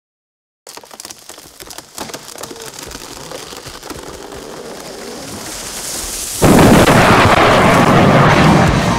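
Wood creaking and snapping in sharp cracks that grow louder, then a large tree crashing down through the forest with a loud, sudden crash about six and a half seconds in.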